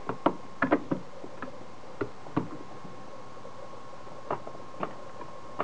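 Small screwdriver clicking and tapping irregularly against the screws and metal housing of a CCTV camera being dismantled, working at a stubborn screw that won't undo. A faint steady high hum runs underneath.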